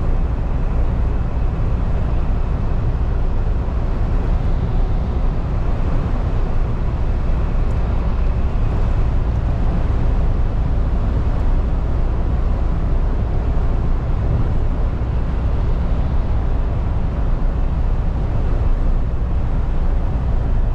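Cab interior noise of a MAN TGX lorry cruising at motorway speed: a deep, steady rumble of engine and drivetrain with tyre hiss from the wet road.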